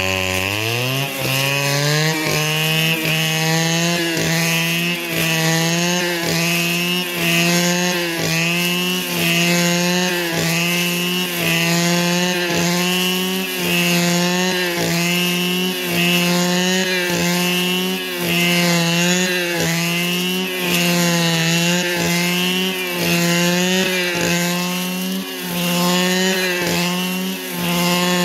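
Small two-stroke engine of a handheld power tool revving up in the first second, then running at high speed under load, its note dipping briefly about once a second as it works.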